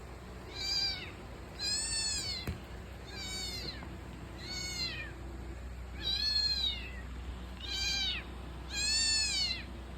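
A kitten meowing over and over, seven high-pitched calls about a second or so apart, each rising then falling in pitch.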